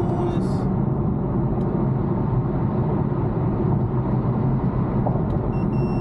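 Steady low cabin rumble of an Infiniti M37S sedan at highway speed: road, tyre and engine noise heard from inside the car.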